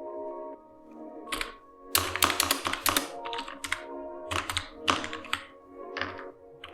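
Typing on a Prodot Prolite USB keyboard, keys clicking in quick bursts with short pauses between words.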